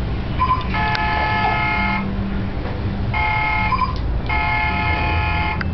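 A horn-like tone of several steady pitches sounds three times, the first and last about a second long and the middle one shorter, each preceded by a short higher blip.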